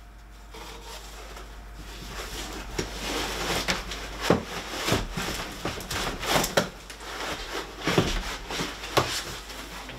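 Rummaging in a cardboard shipping box: cardboard and packing material rustling and scraping, with several sharp knocks as parts are handled inside the box.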